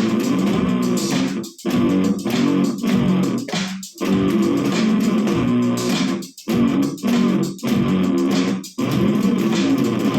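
Electric bass played through a Zoom GM-200 multi-effects unit set to a punk-funk sound: a rhythmic riff broken every second or two by short, sudden stops.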